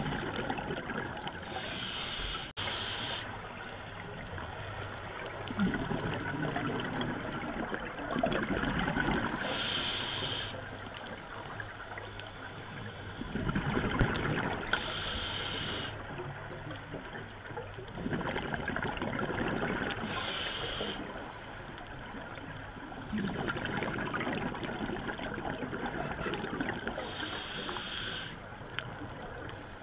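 Scuba diver breathing through a regulator underwater: a short hiss on each inhale, then a longer burble of exhaled bubbles, about five breaths.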